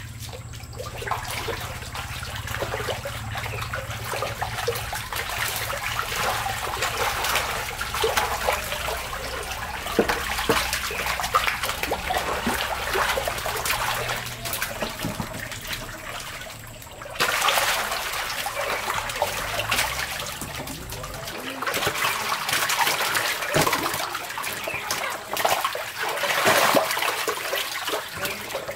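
Shallow water splashing and sloshing as catfish are scooped from a concrete pond with a plastic basket, with the fish thrashing in the water, making many short sharp splashes over a running trickle. A low steady hum sits underneath and fades out about twenty seconds in.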